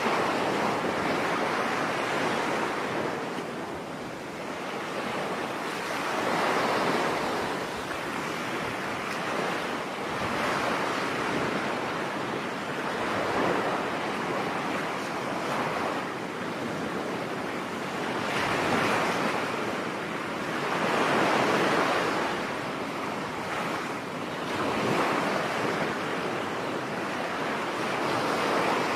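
Ocean waves breaking on a beach, a continuous rush of surf that swells and recedes every few seconds.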